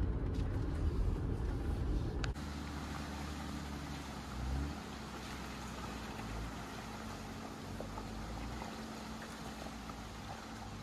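Jeep Gladiator driving slowly on a trail: a steady low engine hum and rumble, rougher and louder for the first couple of seconds, with a single sharp click about two seconds in.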